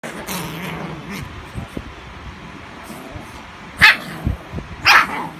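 Shih Tzu puppies play-fighting, one giving two short, sharp yapping barks about a second apart near the end.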